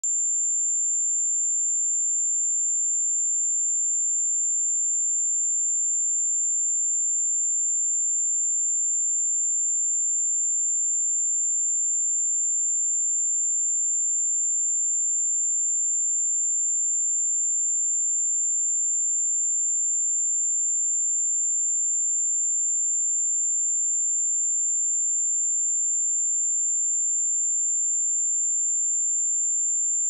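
A pure 7256 Hz sine-wave test tone, held steady at one high pitch without a break.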